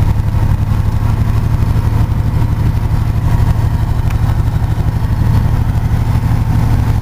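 Chevrolet S-10 Blazer's rebuilt V6 engine running steadily, heard from inside the cab, with a low, pulsing exhaust note. The exhaust is raspy from a bashed muffler that the owner says needs replacing.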